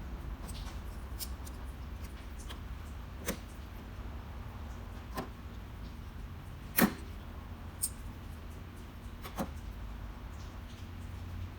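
Scattered light clicks and taps of hand work on metal parts, with one sharper knock about seven seconds in, over a low steady rumble.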